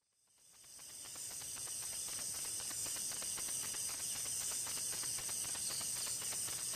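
Crickets chirping in a steady, high, rapidly pulsing trill that fades in about a second in.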